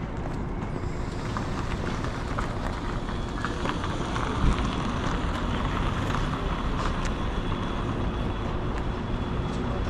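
City street ambience: steady traffic noise from passing vehicles, with a brief thump about four and a half seconds in.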